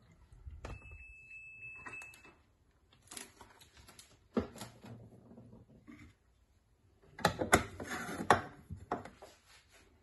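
Clicks and clattering of things being handled, loudest in a cluster of sharp clicks about seven to eight and a half seconds in, with a steady high tone lasting about a second and a half near the start.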